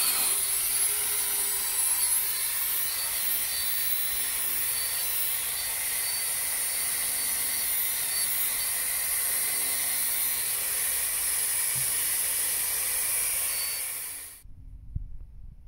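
Angle grinder with a wire wheel running steadily against a rusty steel bicycle frame, stripping rust and paint down to bare metal: a loud high hiss that cuts off abruptly about a second before the end.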